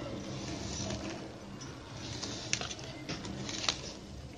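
Plastic running wire being threaded through a woven plastic-strip basket: faint rustling and rubbing of plastic on plastic, with two small sharp clicks, a bit over halfway and near the end.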